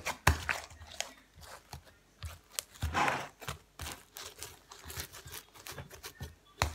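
Old slime being kneaded and squeezed by hand on a glass tabletop: irregular sticky pops, clicks and tearing crackles, thickest about three seconds in.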